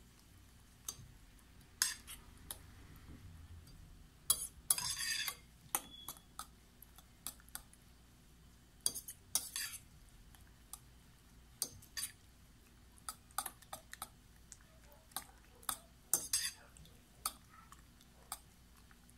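Metal fork stirring beaten eggs with leaves and sausage pieces in a glass bowl: irregular clinks and short scrapes of the fork against the glass, with a few longer runs of scraping.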